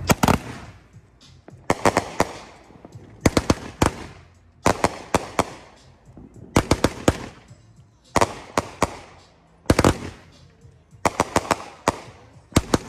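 Consumer firework cake firing, a shot about every one and a half seconds, each shell bursting in a quick cluster of several sharp cracks.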